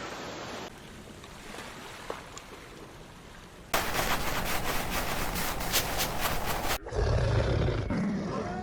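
A loud, rough hissing noise of about three seconds, then a large wild animal's deep roar, which begins near the end.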